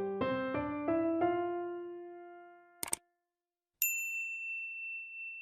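Intro music: a few soft electric piano notes ringing out and fading away, then two quick clicks, a moment of silence, and a single high ding held for nearly two seconds before cutting off.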